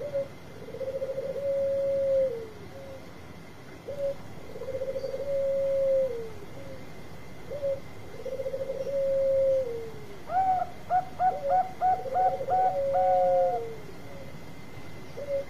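Zebra dove (Bangkok perkutut) cooing: repeated phrases, each a short opening note, a quick rolling trill and a long held note that drops at the end, about every three and a half seconds. Near the end a second, higher coo overlaps, a run of about seven quick clipped notes ending in a held note.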